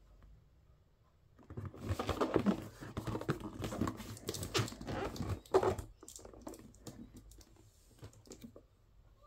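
A cardboard retail box handled and turned in the hands. A busy run of rustling, scraping and tapping starts about a second and a half in and lasts until about six seconds in, then gives way to a few scattered light clicks.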